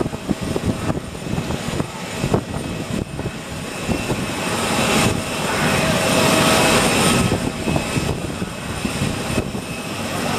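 Distant aircraft engines running on the runway, a faint steady whine under a loud, uneven rushing of rain and wind on the microphone.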